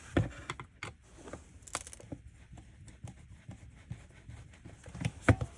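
A small screw being worked out of a car's light control switch panel: a run of small clicks, ticks and light scrapes of the tool and parts, with a sharper knock about a fifth of a second in and another near the end.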